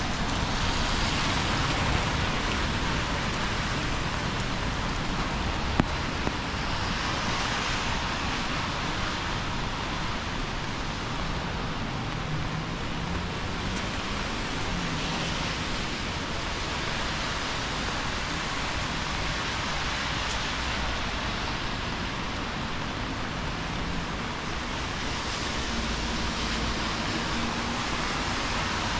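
Heavy rain falling steadily on a city street, with the hiss of car tyres on the wet road swelling and fading several times as vehicles pass. A single sharp click about six seconds in.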